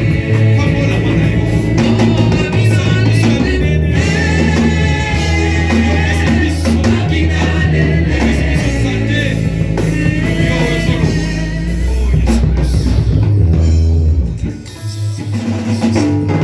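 Live worship music with a drum kit, a steady bass line and singing; it drops down near the end.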